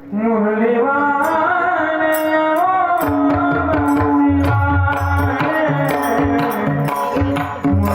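Marathi devotional music opening: an ornamented melodic lead sliding between notes, joined about three seconds in by a steady hand-drum beat and bright cymbal-like clicks.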